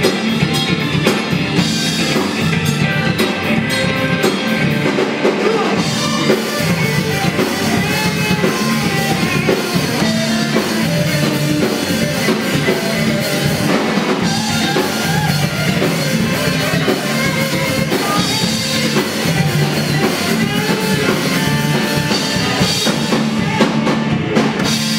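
Live rock band playing loudly, with a drum kit and electric guitars.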